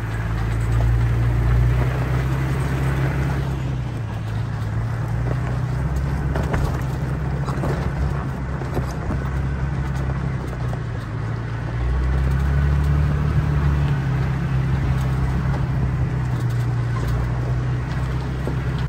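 Toyota Tacoma pickup crawling up a steep, rocky dirt trail: a low, steady engine hum with the tyres crunching and ticking over loose gravel and stones. The engine note shifts a little a few times as the load changes on the climb.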